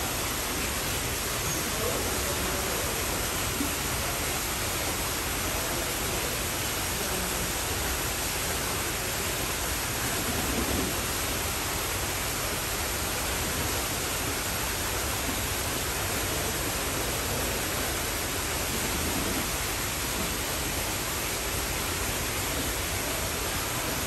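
Steady, even rushing noise with no change in level, with faint brief murmurs of distant voices a few times.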